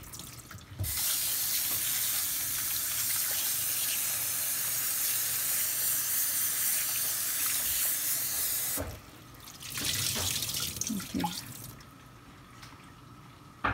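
Kitchen tap running full into a sink, cold water rinsing boiled pig stomach and chicken feet. The water rushes steadily for about eight seconds, stops, runs again briefly, then is turned off, leaving a few light knocks.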